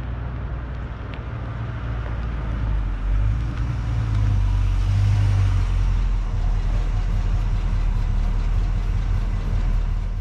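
A 1958 Chevrolet Apache pickup's 350 cubic-inch V8 running with a deep low rumble as the truck drives up. It grows louder over the first few seconds, then holds steady.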